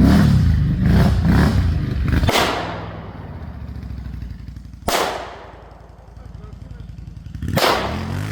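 ATV engine running loudly, then dropping back after about two seconds. Three sharp bangs, each with a short fading tail, come about two and a half seconds apart.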